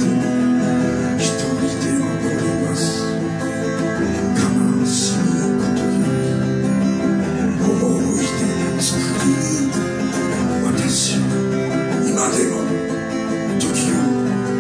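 Live acoustic band music: acoustic guitars strummed steadily under sustained melody notes.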